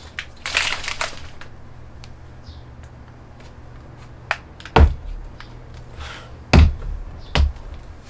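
A plastic shaker bottle being handled and shaken: a short rustling rattle about half a second in, light clicks, then three dull thumps in the second half.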